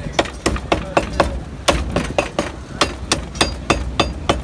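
Cleaver chopping mutton on a block: a fast, uneven run of sharp blows, about four a second, some leaving a faint metallic ring.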